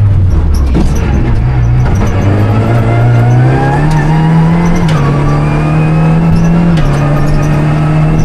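Renault Clio Rally5's turbocharged three-cylinder engine under hard acceleration in the cabin. Its pitch climbs steadily, then drops sharply about five seconds in and again near seven seconds as the driver changes up a gear.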